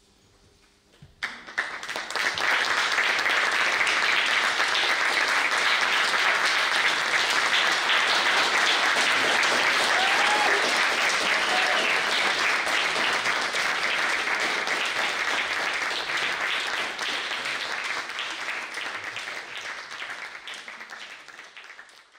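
The orchestra's last quiet held chord stops about a second in, and the audience breaks into loud, sustained applause that gradually fades away near the end.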